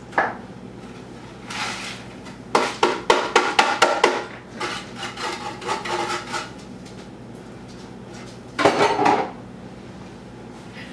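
Kitchen utensils and dishes clinking and clattering: a quick run of sharp metal knocks and clinks a few seconds in, softer clatter after, and a short burst of clatter near the end, over a faint steady hum.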